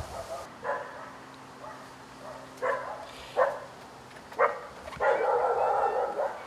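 A dog barking: single barks every second or so, then a longer run of barking about five seconds in.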